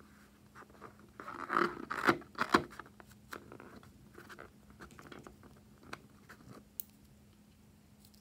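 A slime-filled rubber balloon squeezed and turned in the hands, its skin squeaking and crackling against the fingers, loudest about one to three seconds in, then fainter rubbing and clicks.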